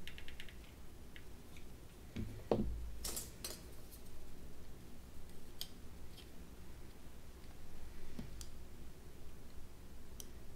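Light clicks and taps of painted plastic spoons and a glass canning jar being handled and pressed together, with one soft thump about two and a half seconds in.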